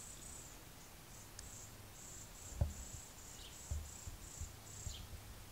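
Faint insect chirping: a high, thin pulse repeated two or three times a second. A soft low thump comes about two and a half seconds in and another near four seconds.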